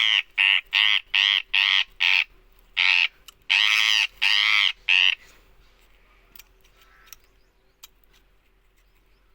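A parrot squawking: about ten loud, harsh screeches in quick succession, stopping about five seconds in, followed by a few faint clicks.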